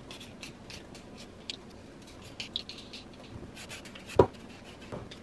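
Vegetable peeler scraping peel off a potato and then a carrot: a series of short, quick scrapes, with one louder knock a little after four seconds in.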